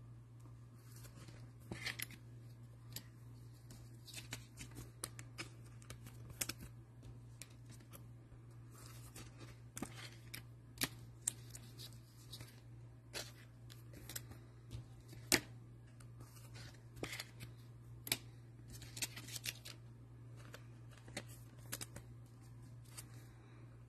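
Hands handling trading-card packaging and Panini Prizm football cards: scattered light clicks, snips and rustles, as a cardboard hanger box is opened and its cards sorted. A steady low hum sits underneath.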